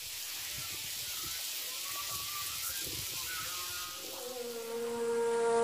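Steady outdoor hiss with faint wavering tones. About four seconds in, the background song comes in with a long, held, rising-then-steady note like a wind instrument, growing louder.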